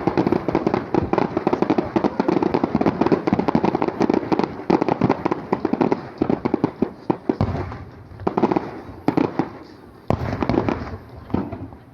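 Fireworks going off in a dense, rapid crackle of many small bursts, which breaks into separate volleys with short lulls in the last few seconds.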